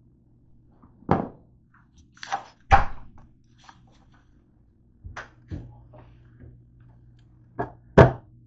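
Irregular knocks and thumps, about seven in all, with the loudest near the end, over a faint steady low hum.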